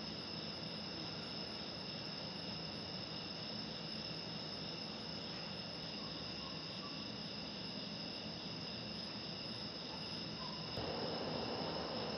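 Night insect chorus: a steady, many-voiced trilling of crickets over a low even hiss, which grows slightly louder near the end.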